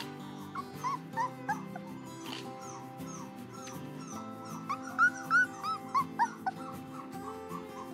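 Three-week-old standard poodle puppy whimpering in a string of short, high squeals that rise and fall in pitch. They are loudest and come thickest about five to six and a half seconds in, over background music.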